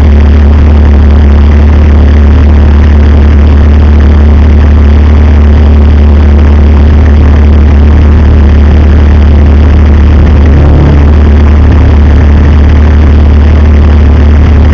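Lifted four-wheel drive's engine running at low revs as it crawls slowly up a rock ledge in a creek bed, a loud, steady low drone.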